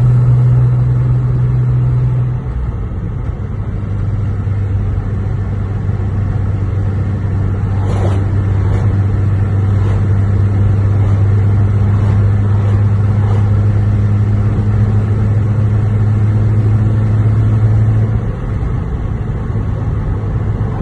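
Lexus GS 300's straight-six engine running steadily under way, its pitch dropping a little about two seconds in and again near the end, with a few faint clicks around the middle.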